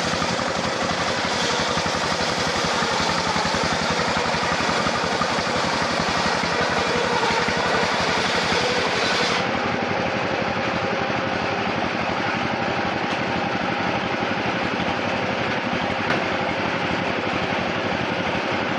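Sawmill machinery running steadily with a dense engine-like drone. About nine seconds in, the sound changes abruptly as the highest hiss drops away.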